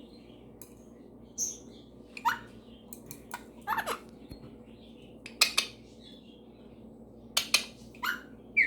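Pet parrots giving a string of short, sharp chirps, several sliding down in pitch, spaced irregularly about a second apart.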